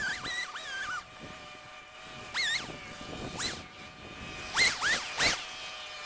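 Short whistled bird chirps: single rising-and-falling notes, then a louder quick run of three about two-thirds of the way through.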